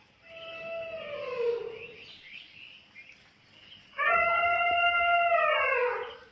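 Two long, drawn-out animal calls, each holding a steady pitch and then sliding down at the end. The second is louder and lasts about two seconds.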